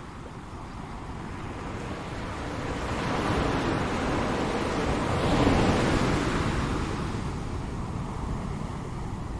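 Ocean waves breaking on a shore: one wave swells up over a few seconds, peaks about halfway through with a wash of surf, then recedes.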